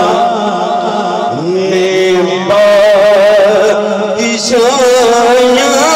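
A singer chanting a devotional Punjabi/Urdu kalam in long, wavering held notes over a steady low drone.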